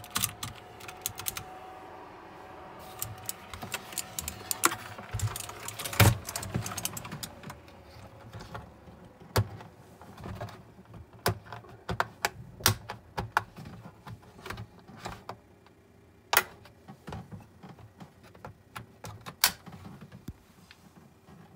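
Mechanical keyboard with blue switches: a quick flurry of sharp key clicks that stops about a second in, then scattered single plastic clicks and knocks as the keyboard is handled and turned over.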